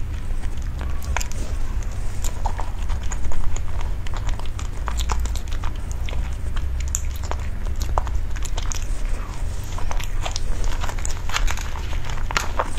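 Close-miked biting and chewing of a soft cream-filled cake, heard as many short, irregular wet mouth clicks over a steady low hum.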